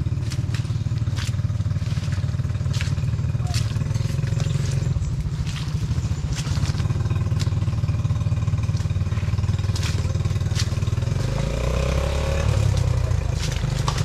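A motor vehicle running with a steady low drone, with frequent knocks and clatters over it; the engine note shifts about eleven seconds in.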